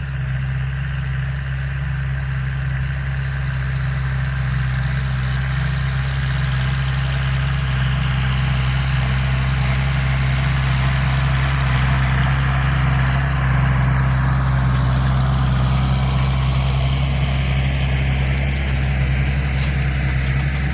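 LS Plus farm tractor's diesel engine running steadily with a deep rumble while working a 14x28 disc harrow, the engine's sound swelling slightly in the first few seconds and then holding.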